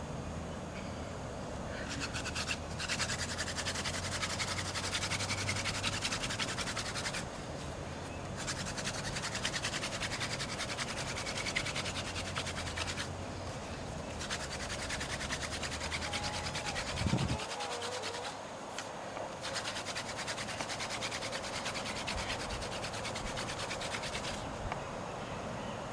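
Wooden hand-drill spindle spun back and forth between the palms against a fireboard, a fast rasping friction in four long bouts with short breaks between, as the drill grinds toward a coal.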